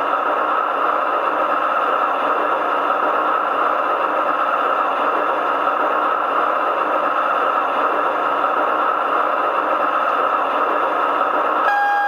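The sound module of a Piko V36 G-scale model diesel locomotive plays a diesel engine idling steadily through the model's speaker. Near the end, a steady typhon horn tone begins over it.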